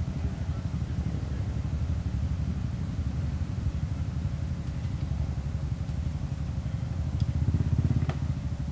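ATV engines idling with a steady low rumble, swelling slightly about seven and a half seconds in, with a couple of sharp clicks near the end.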